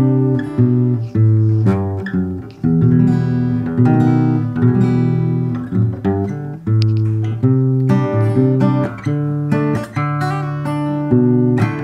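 Steel-string acoustic guitar strung with replica D'Addario EZ900 extra-light strings (gauge 10 to 50), played as a chord progression. Chords are picked and strummed with the fingers and left to ring, with a new chord about every half second to a second.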